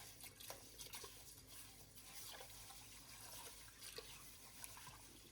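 Near silence: room tone with a few faint, light clicks scattered through it.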